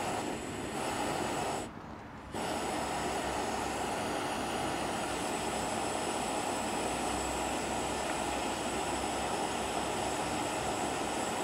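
Shmel-2 petrol primus stove burning under pressure, a steady rushing noise as it runs to warm up, dipping briefly about two seconds in.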